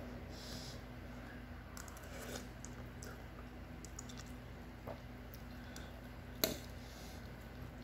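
Soft eating sounds with small clicks of a metal spoon and chopsticks against a ceramic noodle bowl, and one sharper clink about six and a half seconds in.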